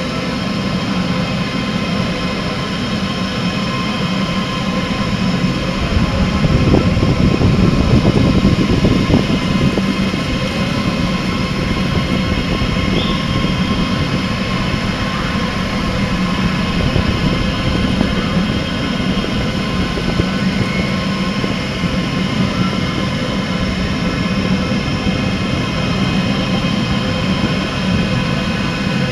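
Delta WASP 3MT large delta 3D printer running, heard from inside the hollow vase it is printing: a steady mechanical hum with several constant whining tones from its motors and fans. It grows louder for a few seconds from about six seconds in.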